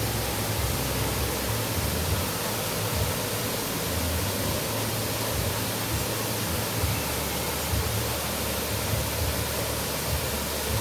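Waterfall rushing steadily, an even hiss with a low rumble beneath it.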